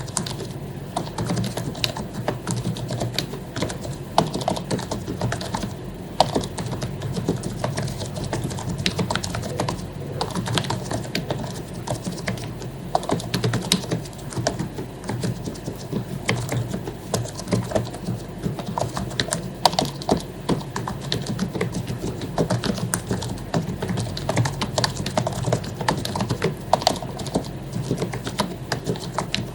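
Continuous fast typing on an HP membrane keyboard whose keycaps have been lubricated, giving a dense, irregular clatter of key presses.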